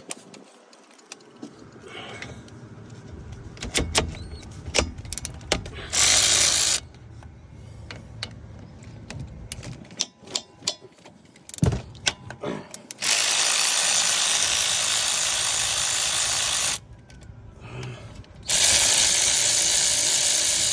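Work on a car's brakes: scattered metal tool clicks and clanks, with ratchet-like clicking, then three bursts of steady hissing: a short one about six seconds in, a long one of about four seconds, and a last one near the end.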